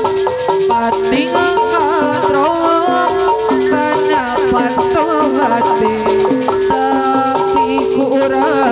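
Sundanese jaipongan gamelan music, instrumental between sung lines: a quick melody of stepped, struck notes over a rattling percussion beat, with gliding melodic lines above.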